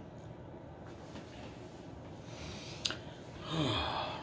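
A man's long breathy sigh, falling in pitch, near the end, after one sharp click about three seconds in.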